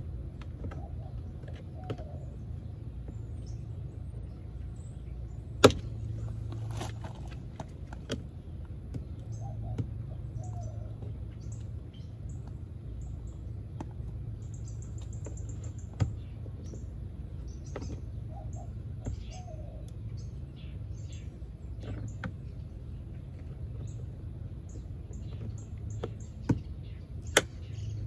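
A few sharp plastic clicks as the puddle light housing is pried out of a VW Atlas Cross Sport's front door with a plastic card, the loudest one near the end, with birds chirping in the background.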